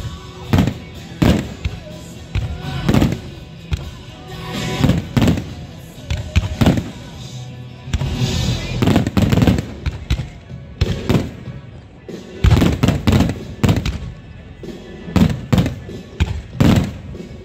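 Aerial firework shells bursting one after another, a sharp bang every half second to a second, with a denser run of overlapping bangs and crackle in the middle.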